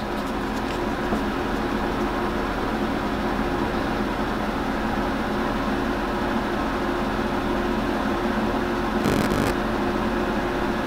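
Steady machine hum with several low steady tones. About nine seconds in, a brief plastic clicking as a fist part is pressed onto an action figure.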